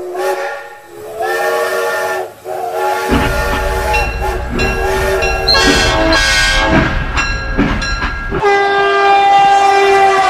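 Battery-operated toy train's electronic horn and whistle sounds: loud held tones that step and slide in pitch, with a low motor rumble running under them for a few seconds in the middle.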